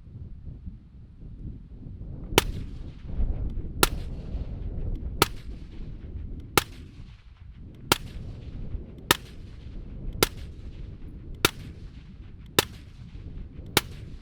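Ten suppressed 5.56 rifle shots from an LMT 14.5-inch rifle fitted with a Rex Silentium MG7 suppressor. The first comes about two seconds in, then they follow at a steady pace of roughly one every 1.2 to 1.4 seconds, each a sharp report with a short echoing tail.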